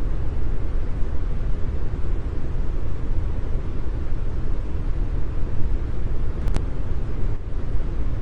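Steady brown noise: an even, deep rushing hiss weighted to the bass, with no rhythm or change.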